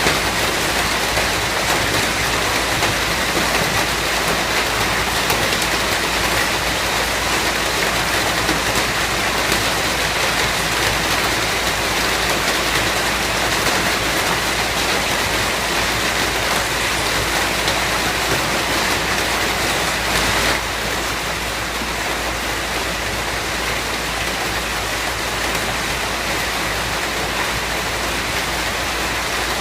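Steady, dense rainfall, an even hiss of drops with no pauses, becoming slightly quieter about twenty seconds in.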